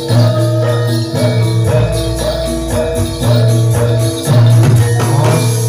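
Javanese gamelan music for a jathilan horse dance: short repeating metallophone notes over loud low drumming, with jingling bells.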